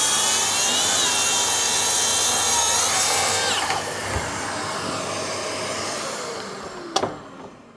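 Hilti cordless plunge track saw with a framing blade cutting through a wooden board along its guide rail, a loud high whine. About three seconds in the cut ends and the blade winds down with a falling whine, and there is one sharp click near the end.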